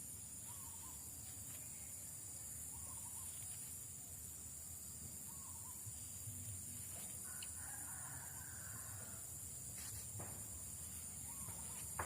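Faint outdoor ambience: a steady high insect drone with a few short, distant bird or fowl calls.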